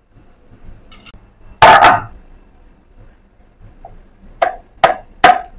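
Kitchenware being handled during dough making: one loud clatter with a brief ring about a second and a half in, then three sharp knocks in quick succession near the end.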